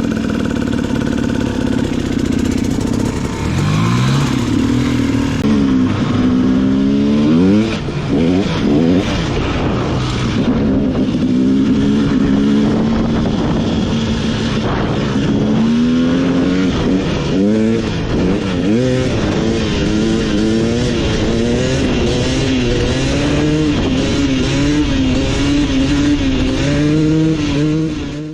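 Two-stroke dirt bike engine breathing through an FMF Fatty expansion chamber and Turbine Core II silencer, revved up and down over and over, then held at a steadier, slowly climbing pitch.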